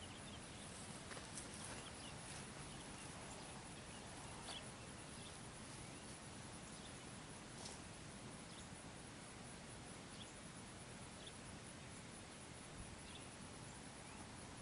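Faint outdoor ambience: a steady low hiss with a few faint, scattered ticks and clicks.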